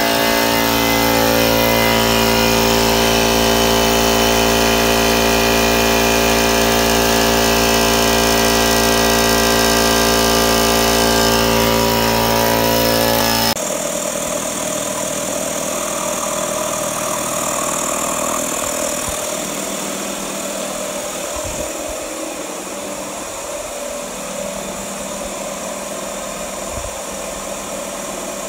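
Harbor Freight Central Pneumatic 21-gallon 2.5 HP oil-free compressor running, loud and steady with a strong hum. About 13 seconds in it cuts to the 29-gallon belt-driven, oil-lubricated compressor running, noticeably quieter.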